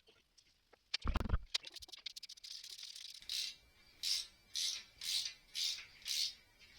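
Clicks and a rattle of fuel injector electrical connectors being worked loose and unplugged, with a loud clunk about a second in. From about halfway, six short scraping strokes follow at roughly two a second.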